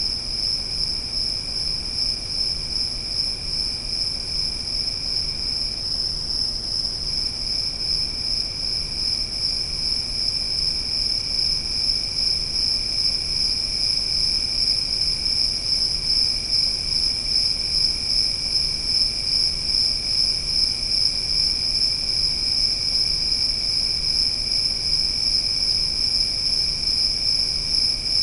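Steady chorus of crickets or similar insects in a forest, a continuous high, finely pulsing trill. A second, lower trill runs alongside it and drops out briefly about six seconds in.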